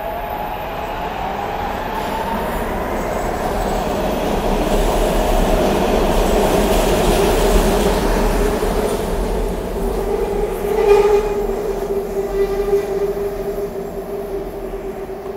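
SEPTA Market-Frankford Line elevated train pulling out of the station, its motor whine rising in pitch over a loud rumble of wheels on the track. In the second half a steady wheel squeal takes over, with a sharp clank about eleven seconds in, as the train draws away.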